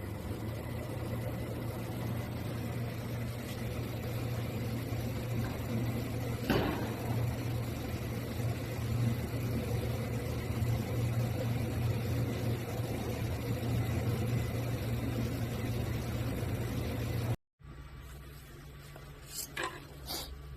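3000 W laser machine running with a steady low electrical hum and a noisy wash, with a single sharp click about six and a half seconds in. Near the end the sound cuts off abruptly and gives way to a quieter hum with a couple of short ticks.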